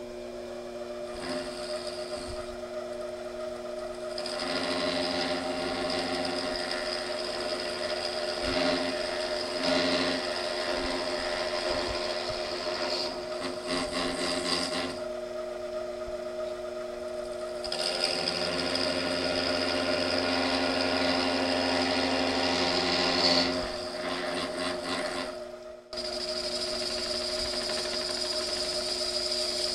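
Small benchtop lathe motor running with a steady whine while a boring bar cuts the plastic webs out of a fan hub, a rough scraping over the hum in two long stretches as the cross-slide is fed in.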